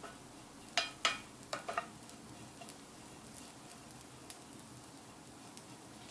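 Small dried anchovies being stir-fried in a nonstick frying pan with a silicone spatula: a light, steady sizzle and scrape of the stirring, with a quick run of five or six sharp taps of the spatula against the pan about a second in, and another single tap later.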